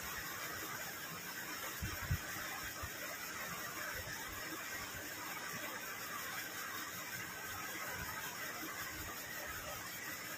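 Quiet eating at a table: fingers mixing and mashing rice on plastic plates, with a couple of soft knocks about two seconds in, under a steady room hiss.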